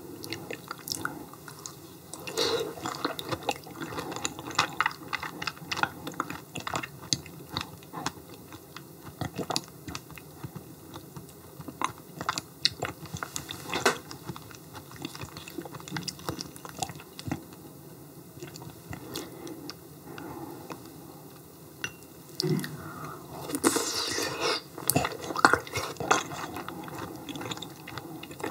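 Close-miked mouth sounds of a person chewing yellow stingray liver: irregular wet smacks and small clicks, with a louder stretch a little over twenty seconds in.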